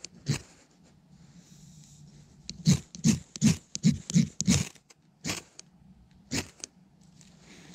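Ferrocerium rod struck repeatedly with a striker: a quick run of about seven sharp scrapes, then two more single strikes, showering sparks onto birch bark to light it.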